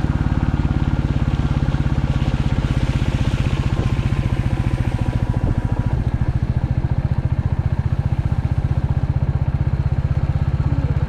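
Royal Enfield Classic 350's single-cylinder engine running steadily under way, its exhaust beat a fast, even pulse. A brief hiss rises over it between about two and five seconds in.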